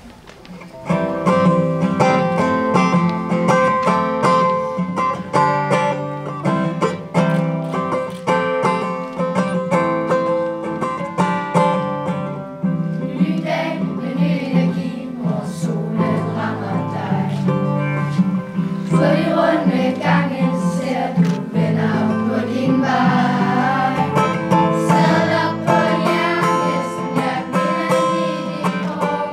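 Acoustic guitar strummed in a steady rhythm as an introduction, then a children's choir starts singing along with it about halfway through.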